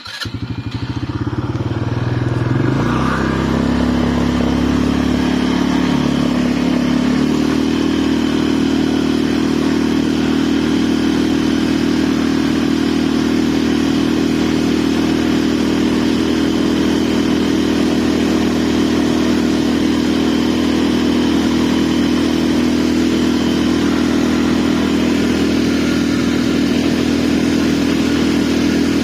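ATV engine running, coming in suddenly and shifting in pitch over the first several seconds before settling into a steady, even note.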